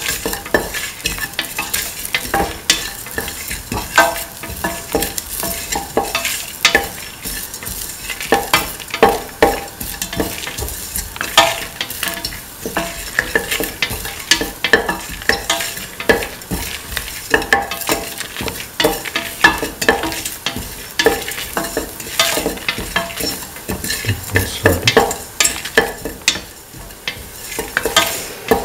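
A spatula repeatedly scraping and clicking against a stainless-steel pan as fennel seeds, dried red chilies and chopped vegetables are stirred while they fry in hot oil, over a steady sizzle.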